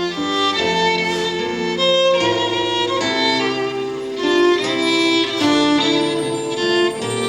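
Instrumental music led by a violin playing a melody over other strings, with a low bass line.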